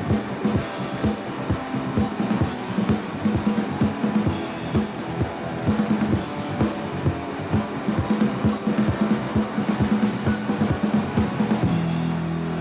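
Rock band instrumental: a drum kit plays a fast, steady beat over bass and guitar. Near the end the drumming stops and a held chord rings on.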